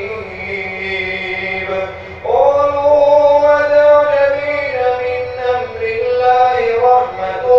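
A man reciting the Quran aloud in the melodic tajweed style of Taraweeh prayer, drawing out long held notes. He pauses briefly for breath about two seconds in, then starts a new phrase on a rising note.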